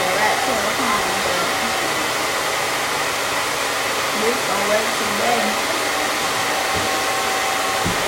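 Handheld blow dryer running steadily: an even rush of blowing air with a faint steady whine.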